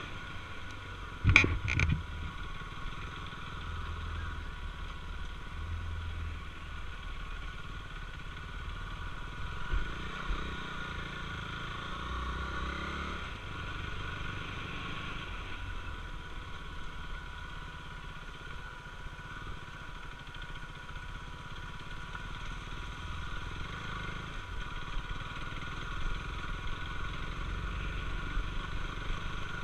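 KTM Duke 390's single-cylinder engine running steadily as the motorcycle is ridden slowly over a rough dirt track, with two sharp knocks about a second and a half in.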